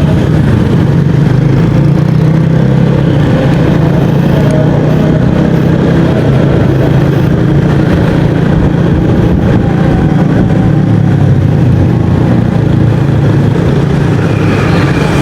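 Yamaha XMAX 250 scooter's single-cylinder engine running steadily while under way, with a loud, even hum.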